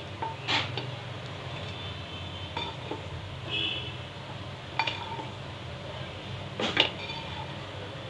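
A wooden spatula stirring thick dal in an aluminium pot, knocking against the pot three times, with fainter scrapes and a short clink in between, over a steady low hum.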